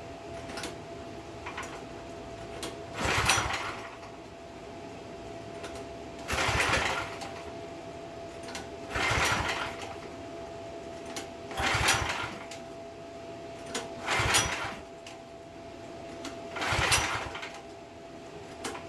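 Pressure washer's small gas engine being pull-started on choke after a carburettor swap: six recoil-starter pulls, each a short rattling burst, about every two and a half seconds, without the engine catching and running.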